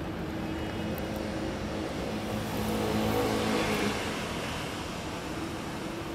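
A motor vehicle passing by, its engine and tyre noise building to a peak about three seconds in and then fading, over a steady low rumble of traffic.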